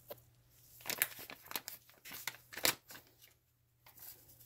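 Packaging crinkling and clicking as it is handled, in a quick run of short sharp rustles with a brief pause about three seconds in, over a faint steady hum.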